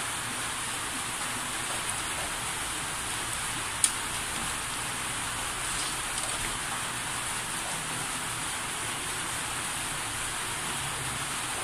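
Steady rain hiss, with one sharp clink of a metal ladle on the bowl about four seconds in.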